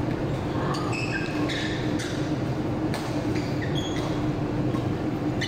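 Court shoes squeaking on a synthetic badminton court as players shift and push off, with a few sharp racket hits on the shuttlecock, over a steady low hum.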